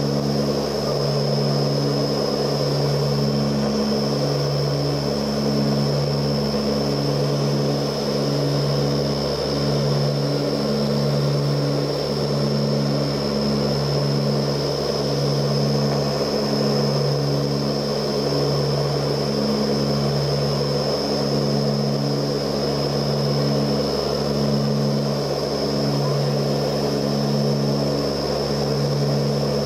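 Ilyushin Il-18's four Ivchenko AI-20 turboprop engines and propellers running in cruise flight, heard inside the passenger cabin: a steady low drone that pulses about once a second, with a steady high whine above it.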